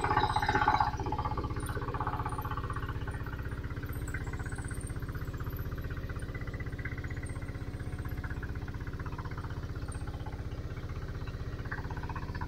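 Fishing boat's engine running steadily while trolling, a low even hum.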